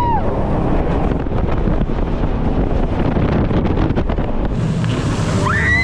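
A jet boat running at speed, with heavy wind buffeting the microphone and a dense, steady engine and water rush. Near the end comes a brief high-pitched cry that rises and falls.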